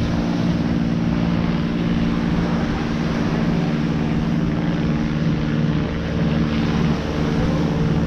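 A steady engine drone, held on a few even pitches without rising or falling, over a continuous noisy wash.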